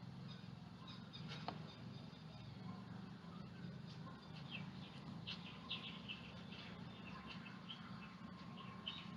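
Faint bird chirps: a series of short, high calls repeating through the second half, over a low steady hum.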